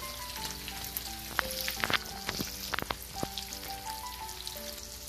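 Halved hard-boiled eggs frying in shallow oil: a steady sizzle of bubbling oil, with a cluster of sharp pops and clicks around the middle.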